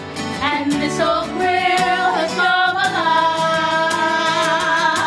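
Musical-theatre singing with instrumental accompaniment, from a folk and bluegrass-style score. The melody moves about, then settles into a long held note from about three seconds in.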